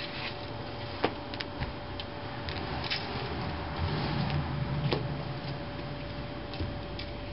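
Garden rake scraping over loose, freshly seeded soil, with irregular clicks and scratches from the tines.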